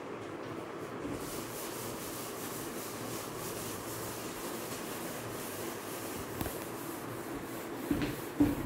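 Handheld whiteboard eraser rubbing across a whiteboard in repeated wiping strokes, with a few short knocks near the end.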